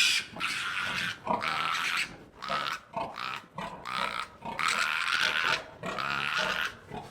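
Animal calls: a run of short, harsh cries in quick succession, with brief gaps between them and one longer cry a little past the middle.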